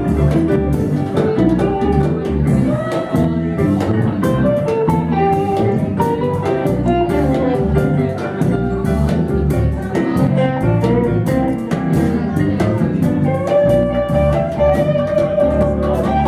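Music with a bluesy, jazzy feel: guitar over a pulsing bass line and a steady drum beat.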